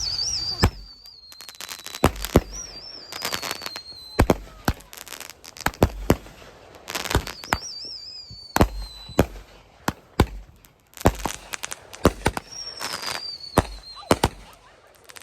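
Consumer fireworks going off: a run of sharp bangs and cracks, with four high warbling whistles that each sink a little in pitch and last a second or two.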